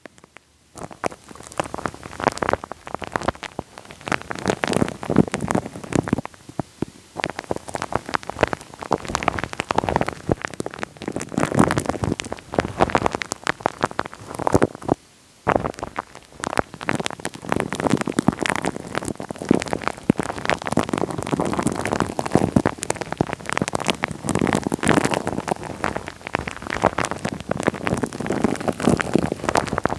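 Wet, sticky crackling right on a microphone: a dense run of small clicks and pops, with a brief pause about fifteen seconds in.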